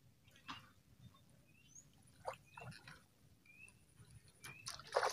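A bird's short rising chirps repeat about once a second, while a hooked fish splashes irregularly at the surface in brief bursts, the loudest near the end.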